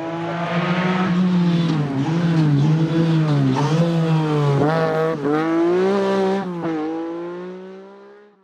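Rally car engine under hard throttle, its pitch dipping and climbing again several times as the driver lifts off and gets back on the power, with a few sharp cracks at the dips. It builds up at the start and fades away near the end.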